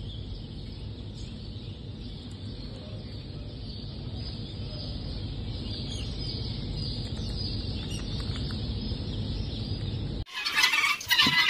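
Chorus of many guinea fowl keets peeping together in crates, a steady high-pitched mass of chick calls over a low rumble. Near the end it cuts off abruptly and a much louder, harsher sound takes over.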